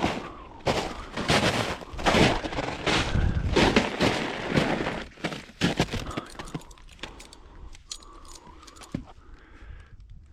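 Footsteps crunching through the woods floor, a heavy step about every three-quarters of a second, then slowing to quieter scattered clicks and crackles in the second half.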